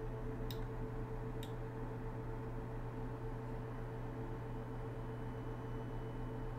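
Steady low electrical hum of room and microphone noise, with two faint computer-mouse clicks about half a second and a second and a half in.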